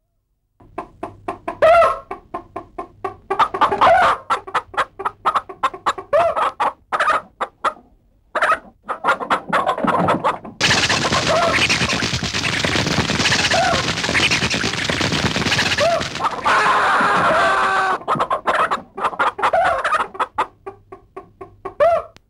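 Chickens clucking in a rapid, uneven run of short calls. About halfway through, a dense loud noise with squawks on top of it takes over for several seconds, and then the short clucks return.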